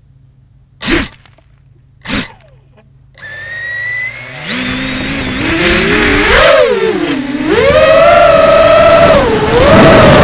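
FPV quadcopter's electric motors and propellers: two short bursts, then spinning up about three seconds in and running loudly, the pitch rising and falling again and again with the throttle as the drone lifts off and flies.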